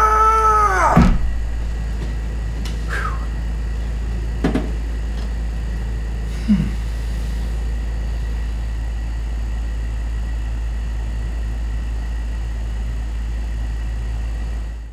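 A man's strained groan that drops in pitch and breaks off with a thud about a second in. Then a steady low hum, with a few faint brief knocks and short falling sounds.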